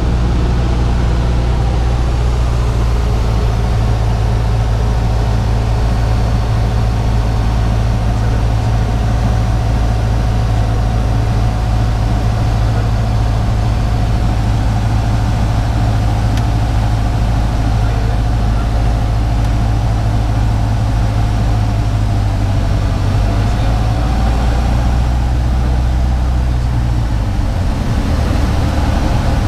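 Cessna 150's four-cylinder Continental O-200 engine and propeller droning steadily, heard inside the cabin on final approach. The engine note shifts near the end.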